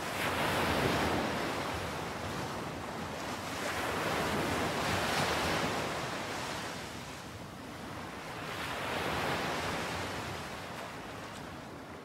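Ocean waves washing in and drawing back in three slow swells about four seconds apart, fading out near the end.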